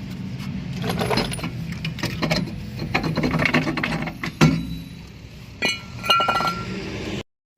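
Irregular metallic clinks and clanks of brake parts and hand tools being handled at a car's rear wheel hub, with a brief ringing metal tone about six seconds in. The sound cuts off suddenly near the end.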